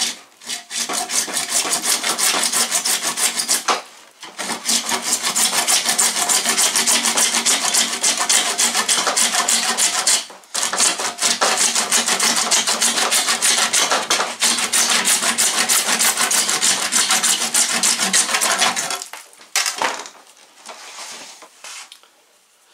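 Hand saw cutting through PVC pipe in fast, even back-and-forth strokes, with two short pauses. The sawing stops about 19 seconds in, and softer rubbing follows.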